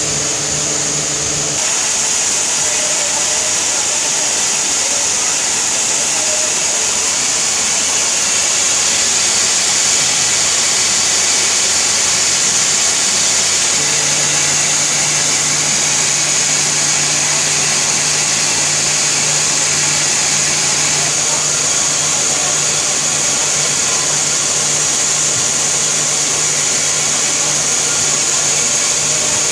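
Textile machinery running steadily: a towel length-hemming machine's overlock sewing heads stitching both edges of the fabric as it feeds through, with a constant high hiss and a low hum.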